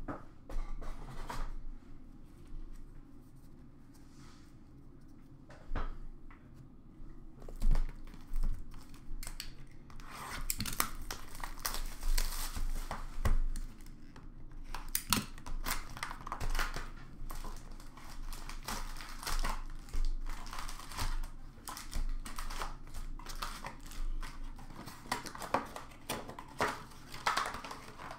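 Hockey card hobby box being torn open and its foil-wrapped packs handled, crinkling and rustling. It is quieter for the first several seconds with a few sharp knocks, and the crinkling and tearing run thick from about ten seconds in.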